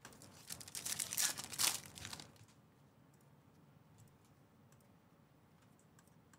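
Trading-card pack wrappers crinkling and tearing open for about two seconds, then only faint scattered clicks.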